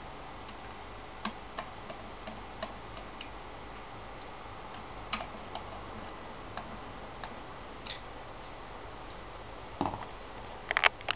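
Phillips screwdriver tightening the screws that hold the control panel to a NOVA DVR lathe's metal headstock: scattered light clicks as the screws are turned. A louder cluster of clicks and knocks comes near the end.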